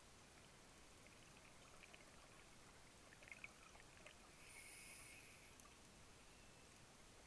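Near silence underwater: a faint even hiss with a few sharp clicks about three and a half seconds in, and a short hiss about a second long just before the five-second mark.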